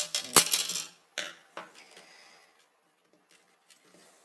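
Clatter of hard keyboard parts being handled and set down, with a sharp knock about half a second in, followed by a couple of lighter clicks and a few faint ticks.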